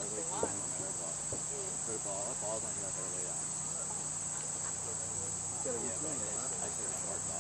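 A steady, high-pitched chorus of insects, such as crickets, runs without a break, with faint distant voices murmuring underneath.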